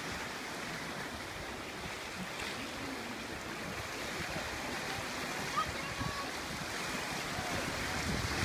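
Ocean surf washing over black lava rocks at the shoreline: a steady rush of water, with a few faint distant voices.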